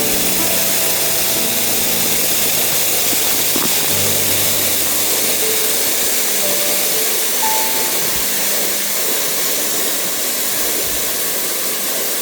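Steady roar of falling water from a waterfall, an even hiss, with soft background music underneath.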